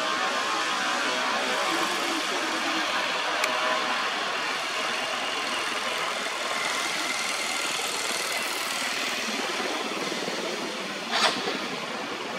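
Steady outdoor background noise with no clear single source, and one short sharp sound about eleven seconds in.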